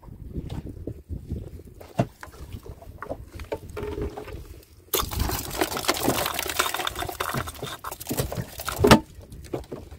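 Water splashing and knocking around a small boat while a fishing net is worked, with scattered knocks in the first half and a stretch of heavier, noisier splashing from about halfway in that peaks in a loud burst near the end.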